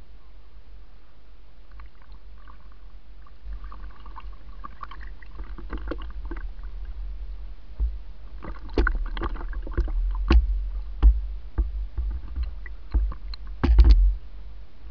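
River water slapping and splashing against an aluminum canoe's hull close to the microphone, over a steady low rumble. Sharp splashes and knocks come more often in the second half, the loudest cluster near the end.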